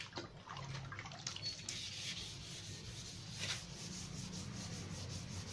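Hand wet-sanding of epoxy primer on a car door panel with 1000-grit sandpaper on a sanding block, the paper scratching back and forth over the wet surface. It settles into quick, even strokes about two seconds in.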